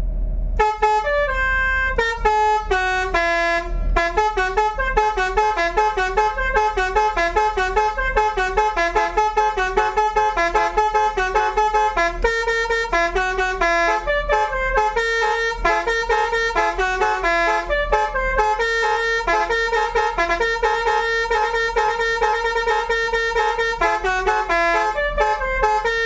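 Telolet basuri bus horn, a set of tuned air-horn trumpets, playing a quick melody note by note, its keys pressed on a piano-style keyboard controller; the tune starts about half a second in.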